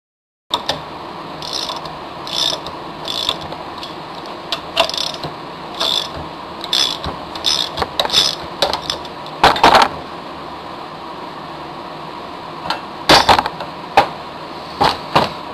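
Ratchet wrench turning the bolts of a puller to draw an office chair's gas lift cylinder up out of the seat mechanism, clicking about once a second. There are a few louder metal clanks in the middle and near the end.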